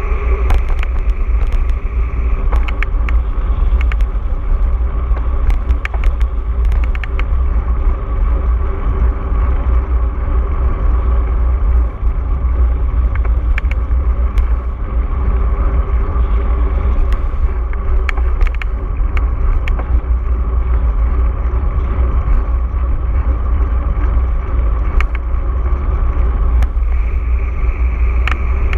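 Mountain bike riding over rough ground, heard through a GoPro's microphone: a steady heavy rumble of wind buffeting and rolling, with many sharp clicks and rattles from the bike scattered throughout.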